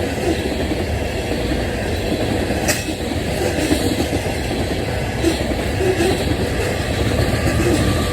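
CSX coal train rolling past, its steel wheels rumbling steadily on the rails with a few sharp clacks over the rail joints.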